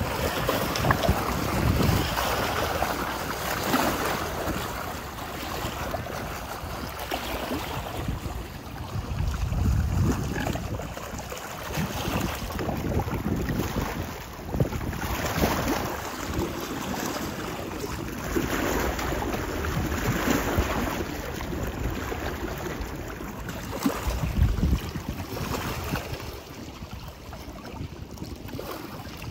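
Wind buffeting the microphone over choppy lake water lapping against shore rocks, rising and falling in gusts.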